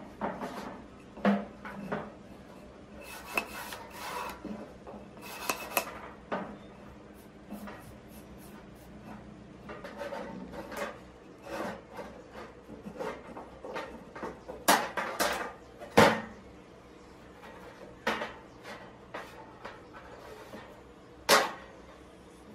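A rusty steel bicycle hand pump being handled and taken apart on a metal workbench: scattered knocks and clatter as the barrel and plastic parts are set down, with short scraping and rubbing as parts are twisted and pulled free. The loudest knocks come about 15, 16 and 21 seconds in.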